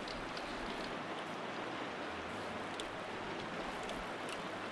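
Clear shallow river running over a stony bed, a steady rushing of riffle water, with a few faint clicks.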